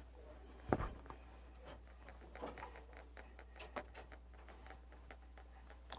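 Whiteboard eraser wiping the board in faint, brief rubbing strokes, after a single knock under a second in, over a steady low hum.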